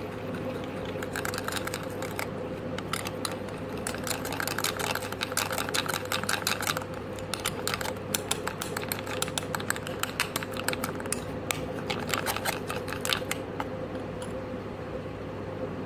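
Metal spoon clinking and scraping against a small glass bowl while stirring a floury egg-white paste: a rapid, uneven run of light taps that stops near the end.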